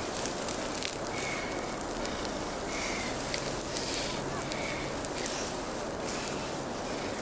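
Dry grass crackling and rustling as it is cut and gathered by hand, with frequent sharp snaps of breaking stems.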